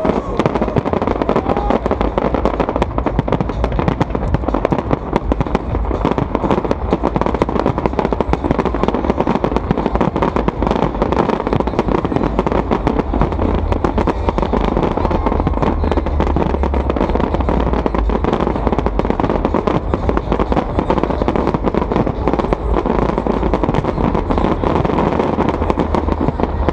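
A large aerial fireworks barrage: many shells bursting in quick succession, overlapping bangs and crackling with no pause, along with the crackle of glittering star effects.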